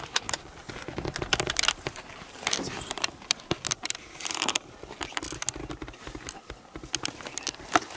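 Close, irregular rustling and crackling with many sharp clicks, which cuts off abruptly at the end.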